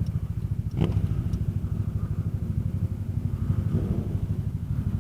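Kymco Xciting 400i maxi-scooter's single-cylinder engine running at low speed, its exhaust a fast, even low pulsing. There is one sharp knock about a second in.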